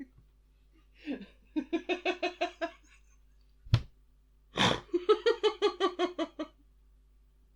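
Lego Luigi interactive figure's electronic voice giggling through its small speaker: two runs of quick, evenly spaced 'ha-ha' laughs, with a sharp click and a short hiss between them.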